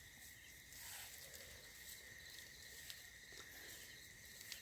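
Near silence, with a faint steady high-pitched chirring of night insects.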